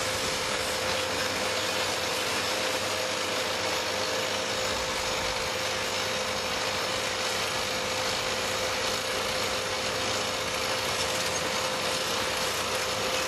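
SOOSAN STD11 hydraulic crawler drill rig running steadily during rod changing: an even mechanical hiss-like noise with a steady mid-pitched whine, without distinct knocks.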